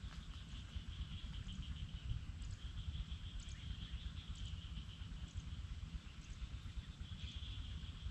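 Insects chirring in a steady, pulsing high-pitched trill, over a constant low rumble of wind on the microphone.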